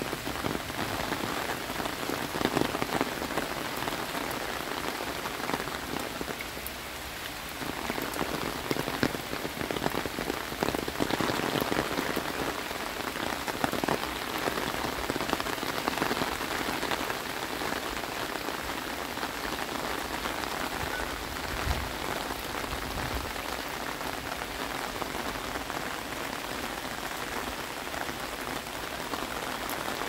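Rain falling steadily on tropical foliage and a wet paved path, with many separate drop hits close by.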